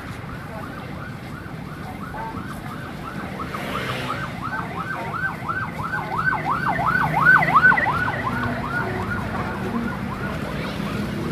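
A siren in a fast rising-and-falling yelp, about four or five sweeps a second. It grows louder toward the middle, then fades away, over a low steady rumble of street traffic.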